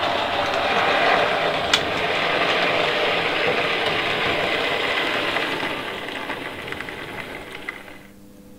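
OO gauge model train running on the layout: a steady mechanical whirr of the locomotive's motor and gears with the wheels rattling over the track, and a sharp click about two seconds in. The sound fades away near the end.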